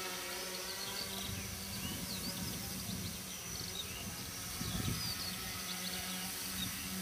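Home-built tricopter's three electric motors and propellers buzzing steadily as it flies low and comes into a hover, with a deeper hum settling in about five seconds in.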